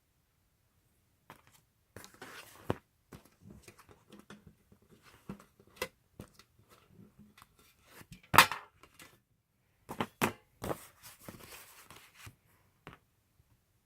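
Album packaging being handled and opened: scattered rustling, tearing and clicking, with one sharp, loud click about two-thirds of the way through and a few more soon after.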